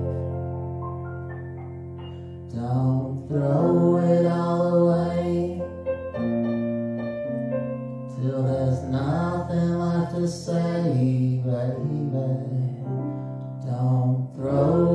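A slow ballad sung as a duet by a man and a woman over a sustained electric keyboard backing. A held keyboard chord fades for the first two seconds or so before the voices come in.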